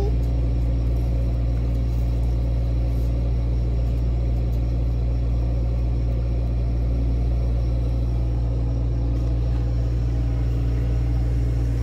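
A steady low mechanical hum, holding the same pitch and level throughout.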